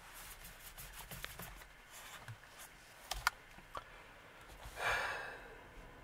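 Quiet room with scattered faint clicks and handling noises, two sharper clicks a little after three seconds, and a soft breathy exhale near the five-second mark.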